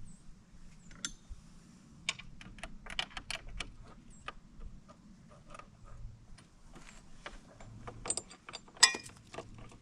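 Irregular light metal clicks and clinks of a short 14 mm wrench working nylon lock nuts onto the winch fairlead bolts, with a louder clink near the end.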